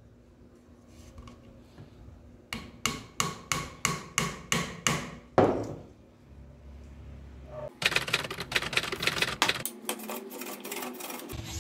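Hammer tapping a tapered tool into the peg hole of a mortise-and-tenon joint: about ten sharp taps, roughly three a second, ending in one harder blow. A few seconds later comes a spell of fast rubbing, rasping strokes as the tapered pin is worked to fit.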